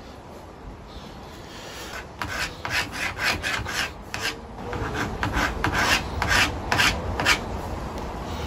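Pencil scratching along an MDF panel in quick repeated strokes, about two to three a second, marking a line with a wooden block as a guide. The strokes start about two seconds in and stop shortly before the end.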